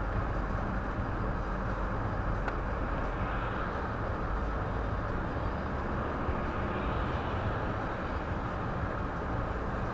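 Steady road noise inside a moving car's cabin: tyre and engine rumble with wind hiss, heard while driving.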